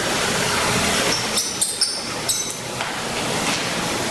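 A handful of light clicks and ticks, bunched in the middle, as the standoffs that hold a Thermaltake Core P5's acrylic panel are unscrewed by hand from the case's metal frame and handled, over a steady hiss.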